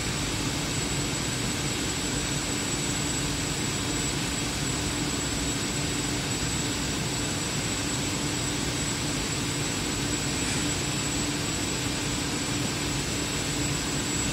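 Paper mill machinery running at a steady drone, with a constant low hum and a thin high whine held over an even rushing noise.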